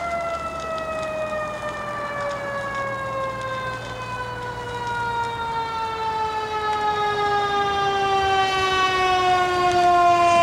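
Fire engine siren in one long, slowly falling wail, dropping steadily in pitch and getting louder toward the end as the truck draws nearer.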